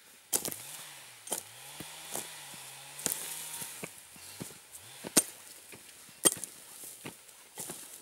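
Hoe blade chopping into forest-floor turf, roots and soil, digging a mineral firebreak strip. About seven sharp strikes come at irregular spacing, roughly once a second, and the two near the two-thirds mark are the loudest.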